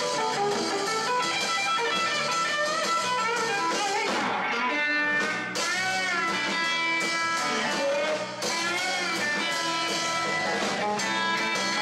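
Background music led by a guitar, with a few notes bent up and back down.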